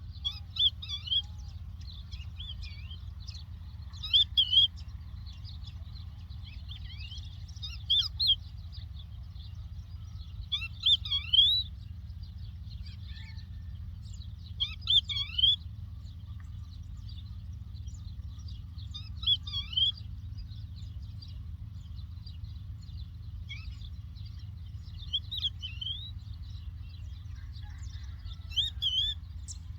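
A lark singing short, twittering song phrases, one about every four seconds, over a steady low rumble.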